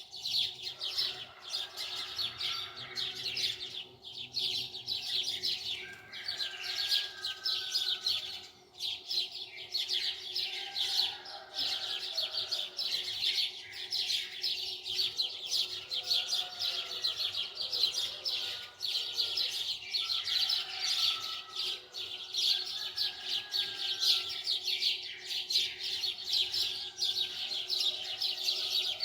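Many small birds chirping rapidly and continuously in a dense chorus, with a few lower whistled notes mixed in. A faint steady hum runs underneath.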